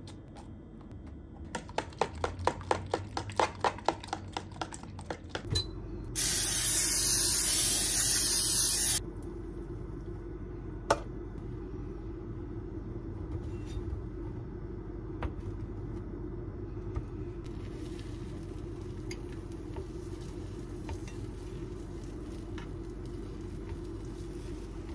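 Home stovetop cooking sounds. A quick run of clicks or taps, about four a second, comes first. Then a loud hiss lasts about three seconds and cuts off sharply, and a steady low hum with faint sizzling follows.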